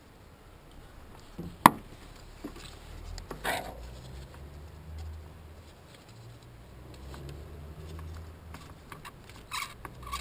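Hand work on an engine: a sharp click about a second and a half in, a brief scrape a couple of seconds later, and light clicks and rustling near the end, as vacuum lines are being plugged off. A low steady hum runs underneath from about three seconds in.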